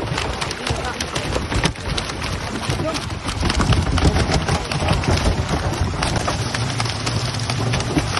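A net crammed with live fish thrashing and splashing at the water's surface: a dense, continuous patter of slaps and splashes, like heavy rain.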